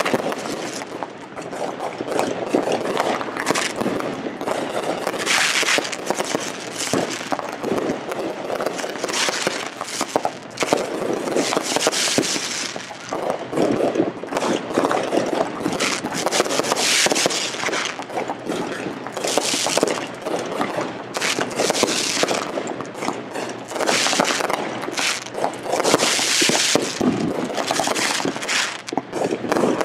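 Aerial fireworks display: shells bursting in quick succession, a dense stream of bangs and crackling with no gaps, and hissing crackle surges every few seconds.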